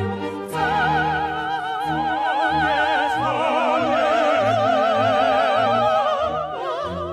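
Two sopranos singing long held notes with wide vibrato over a symphony orchestra playing short repeated bass notes; the second voice joins about three seconds in.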